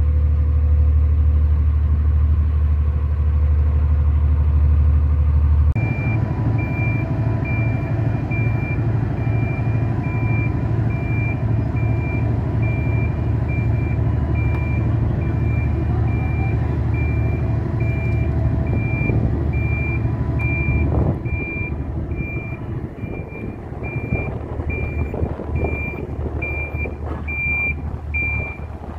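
Marine travel lift's engine running steadily under load, and from about six seconds in its travel warning alarm beeping about once a second as the hoist drives with the boat slung beneath it. The engine eases off about three quarters of the way through while the beeping goes on.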